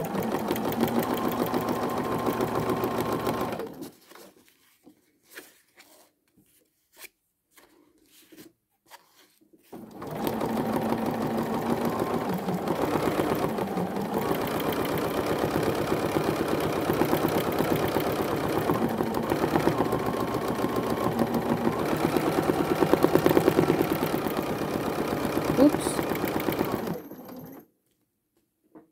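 Bernina sewing machine stitching at speed during free-motion quilting, a fast, even needle rhythm. It runs for about four seconds, pauses for about six seconds with a few faint clicks, then runs again for about seventeen seconds and stops near the end.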